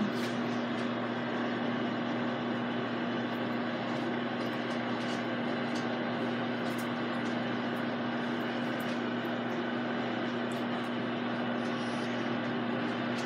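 Microwave oven running: a steady hum with a low droning tone.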